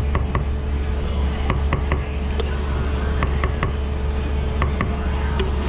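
Steady low hum of kitchen equipment with scattered light knocks and clicks, a few at a time, from work at the counter.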